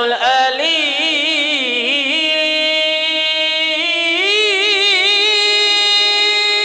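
A man chanting the divine name "al-Alim" in a long, drawn-out melodic line into a microphone, the held notes wavering with ornaments and a rise in pitch about four seconds in.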